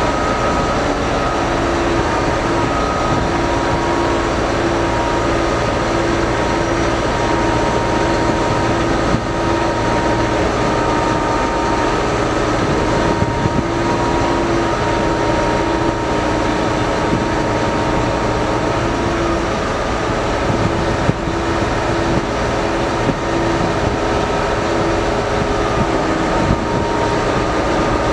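Steady diesel engine drone of a river push-tug pushing a barge, a few held tones over an even rush of noise.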